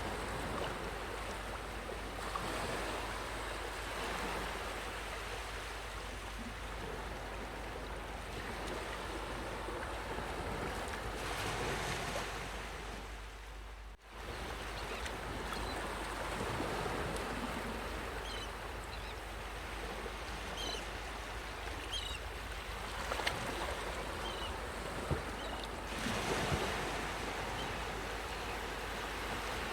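Ocean waves washing onto a beach: a steady surf rush that swells and eases, cutting out briefly about halfway before resuming.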